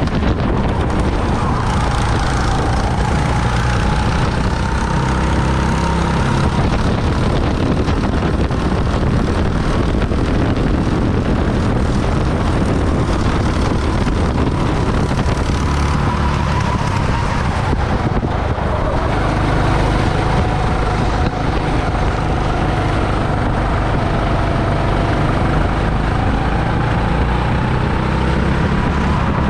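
Rental go-kart running at racing speed, heard from on board: a steady rush of wind and motor noise, with a faint whine that falls and rises in pitch several times as the kart slows and speeds up again.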